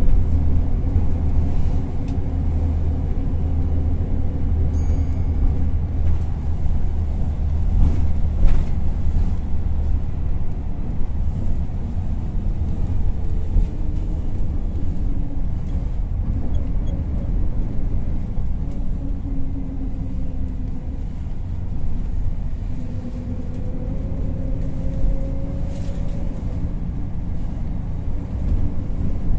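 Volvo B10BLE single-deck bus heard from inside the passenger saloon while driving through town: a steady engine and road rumble, the engine's pitch shifting several times as the bus changes speed. A brief knock sounds about eight seconds in, and another near the end.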